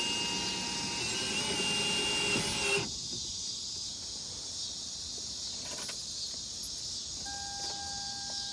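Crickets chirring steadily. For the first three seconds a faint mechanical whir with a steady tone runs under them, and from about seven seconds in two steady electronic tones begin.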